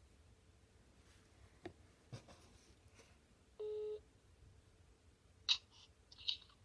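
Mobile phone placing a call: a single short, steady beep a little past halfway through while the call waits to connect, with a few faint clicks around it.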